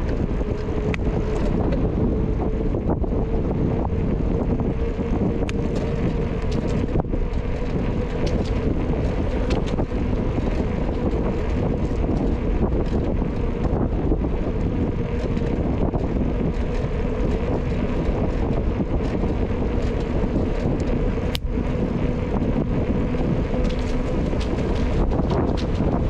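Wind rushing over the microphone of a camera on a moving bicycle, with a faint steady hum that rises slowly in pitch. A sharp click comes about three-quarters of the way through.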